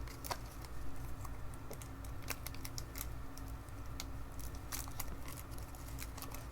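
Pokémon trading cards and booster-pack wrapping being handled: sparse, light clicks and soft rustles over a faint steady hum.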